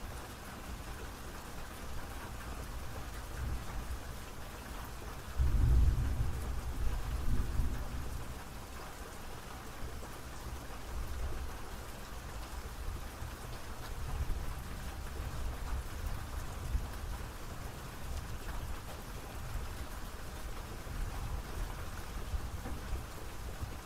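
Steady rain, with a low rumble of thunder breaking in suddenly about five seconds in and rolling away over the next few seconds.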